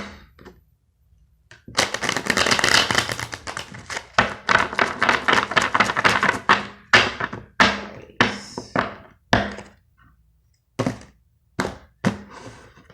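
A deck of tarot cards being shuffled: a fast run of card flicks lasting several seconds. Then cards are slapped down one at a time onto a table, six or seven separate slaps.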